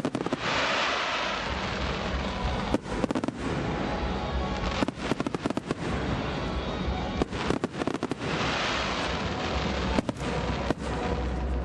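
Fireworks display going off: a dense crackling hiss from bursting stars, broken by clusters of sharp bangs several times.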